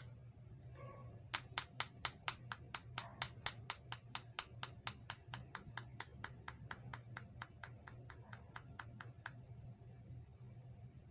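A run of evenly spaced sharp clicks, about four a second, starting about a second in and stopping about nine seconds in.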